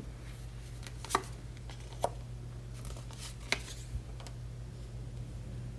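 Tarot cards being handled on a table: a few sharp taps and snaps about a second apart, over a steady low hum.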